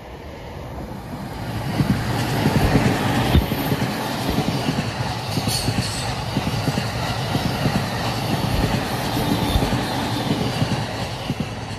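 A JR Utsunomiya Line electric multiple-unit commuter train passing close by. It grows loud about two seconds in as the cars reach the spot, then runs on as a steady rumble with repeated clatter of wheels over the rail joints, easing a little near the end.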